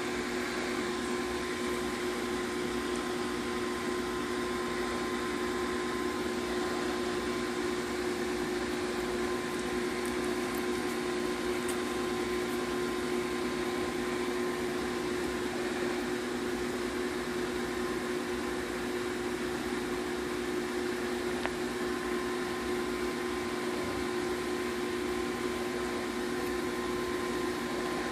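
Steady whirring hum of a running fan motor, with a constant droning tone and no change throughout.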